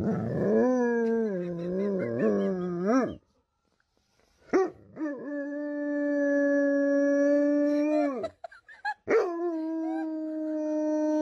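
German Shepherd howling: three long howls with short pauses between them, the first wavering up and down in pitch, the next two held steady.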